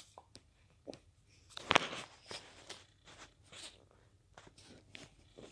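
A few soft rustles and clicks close to the microphone, with one louder brief scuffle about two seconds in.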